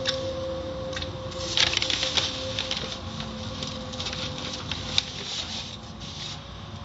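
Cloth strips of an automatic car wash curtain and spraying water slapping and pattering on a car's windshield, heard from inside the car, with many irregular slaps that are thickest a couple of seconds in and a sharp click about five seconds in. A steady hum runs underneath.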